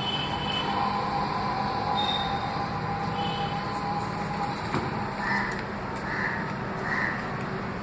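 A crow cawing three times, evenly spaced, in the later half, over a steady background rumble with a held whining tone in the first half.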